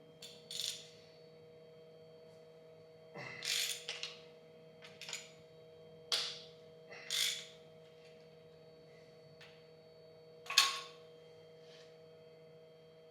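Wrench work on a Chevy 454 big-block engine being torn down: several short spells of ratcheting and metal clinks, the sharpest near the end, over a steady low electrical hum.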